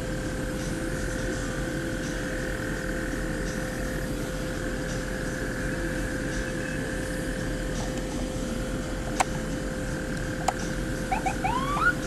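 Steady drone of a fire engine's motor and pump running with a constant hum, over the rush of a burning vehicle. Two sharp pops come a little over a second apart in the second half, followed near the end by a quick run of short rising squeals.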